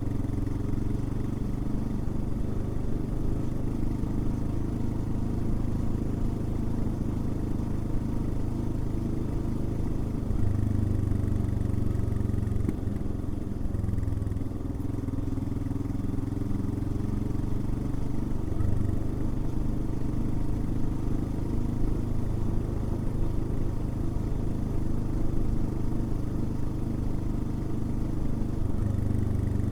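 Royal Enfield Himalayan's single-cylinder engine running steadily under way, its low exhaust note swelling briefly a few times as the throttle changes.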